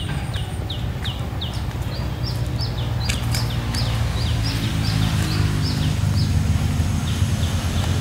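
A bird repeating a short falling chirp rapidly, about three or four times a second, stopping about six seconds in, over a steady low hum.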